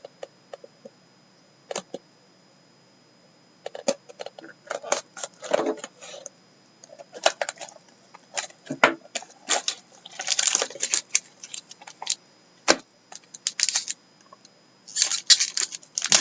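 Irregular clicks and rustling of a sealed hockey card box being unwrapped and opened and its packaging handled, starting a few seconds in and growing busier toward the end.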